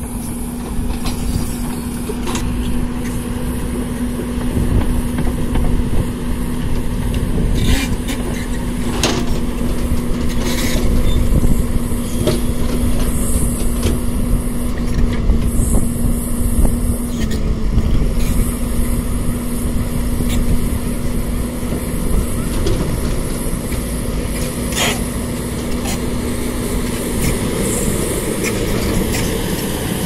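JCB tracked excavator working at a dig with dump trucks beside it. Its diesel engine is running under load as a dense rumble with a steady hum that drops out near the end. A few sharp knocks are heard along the way.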